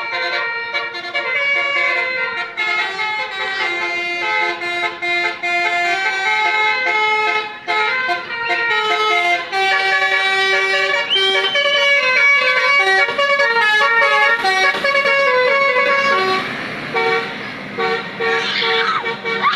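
Bus 'telolet' multi-tone musical air horn (Basuri type) playing a tune of stepped notes, repeating over and over.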